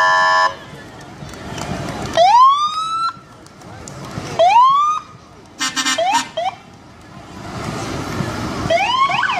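Emergency vehicle sirens sounding short rising whoops, twice, then a few quick chirps and a run of rising-and-falling yelps near the end. A burst of short, steady horn blasts comes in the middle.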